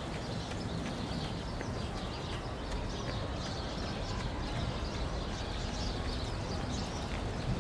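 Small birds chirping over and over in short high notes, over a steady low rumble of city traffic.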